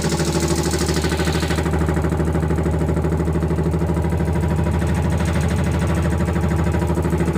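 10 HP electric piston air compressor running steadily, with a fast, even pulsing from the pump's pistons over the motor's hum.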